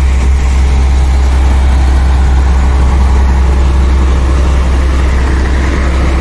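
Heavy diesel truck engine running steadily at close range, a deep continuous drone without pauses or revving.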